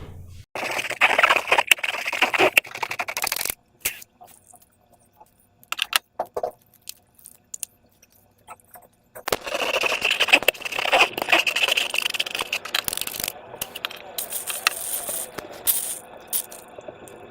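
Slime and transparent balloons being squeezed and handled: dense crackling and clicking for about three seconds, then a mostly quiet stretch with scattered clicks, then crackling again from about nine seconds in.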